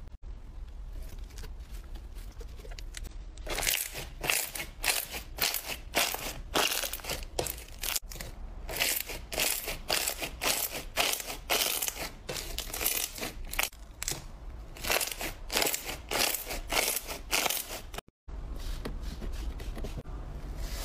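Hands squeezing and pressing slime, which makes dense crackling and squelching pops several times a second. The sound is softer for the first few seconds and drops out briefly near the end.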